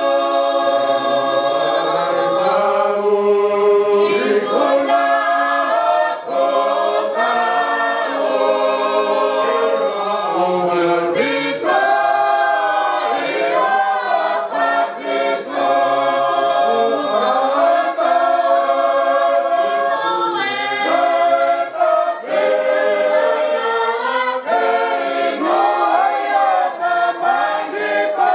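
A choir singing unaccompanied, several voices holding long notes together.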